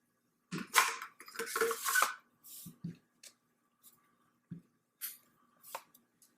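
Metal parts of a TriStar Raptor semi-auto shotgun being handled during reassembly: a burst of scraping and clinking about a second long, then a few light clicks and knocks.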